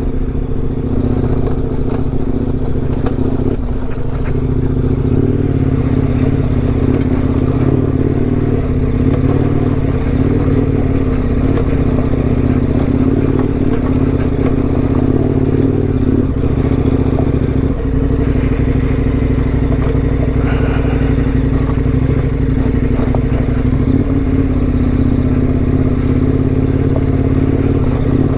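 KTM 1090 Adventure R's V-twin engine running at steady revs while riding, with a small change in engine note about two-thirds of the way through.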